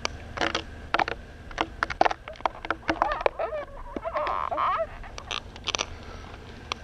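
Climbing spurs biting into spruce bark and a gloved hand scraping the trunk: a run of sharp crunches and scrapes, with a few short squeaky chirps in the middle.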